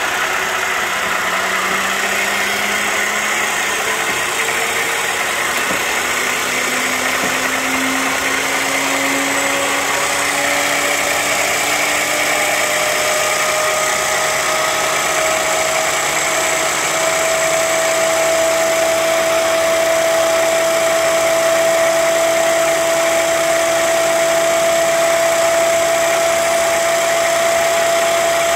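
Dormac FMB-250 internal grinder running under power, its chuck turning: a steady machine whir with a tone that rises slowly in pitch over the first fifteen seconds or so and then holds steady.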